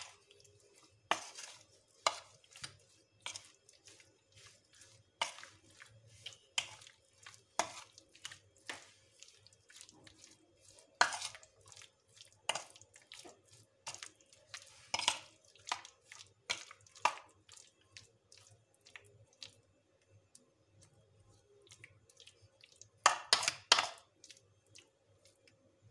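A spoon knocking and scraping against a bowl as chicken pieces are stirred through a thick cream marinade, in irregular clicks with a quick run of louder knocks near the end.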